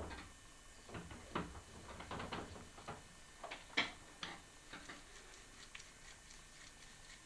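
Irregular soft knocks and taps as a pot is hand-built on a hand-turned potter's wheel: the wheel is knocked round by hand while clay is pressed onto the pot's rim. One sharper tap comes about halfway through.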